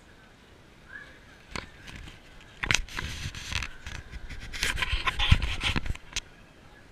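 Rubbing and scraping against the GoPro's housing, mixed with sharp knocks. It starts a little under three seconds in and stops about six seconds in, with the loudest knock, a deep thump, just after five seconds.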